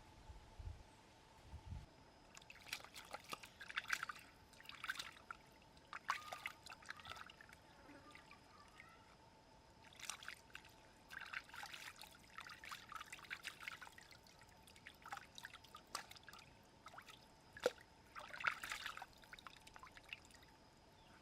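Water trickling and splashing in short, irregular bursts, with quiet gaps between them.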